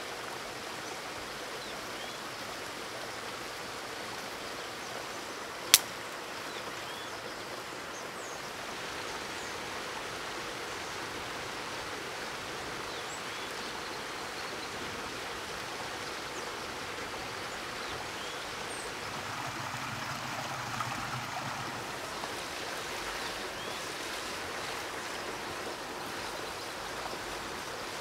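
Steady rushing of stream water with a few faint bird chirps. About six seconds in there is a single sharp click.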